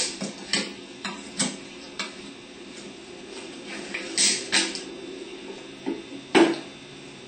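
Side cutters snipping through the copper stator leads of a Ford 6G alternator, cutting them free of the old rectifier: a string of sharp metallic clicks and snaps, the loudest at the very start, around four seconds in and near the end.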